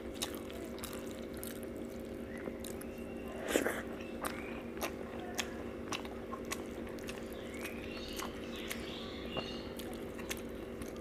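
Close-up eating sounds: chewing and small wet mouth clicks, with fingers squishing rice and dal against a steel plate. A brief louder squelch comes about three and a half seconds in.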